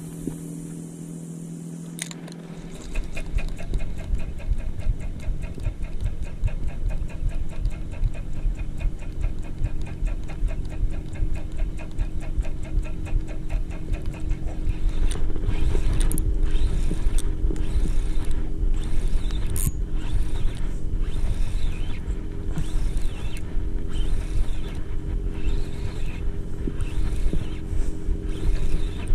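Spinning reel being cranked against a hooked striped bass, with a fast, even ticking from the turning reel over a steady low rumble. About halfway through, louder knocks or rubs begin, roughly once a second.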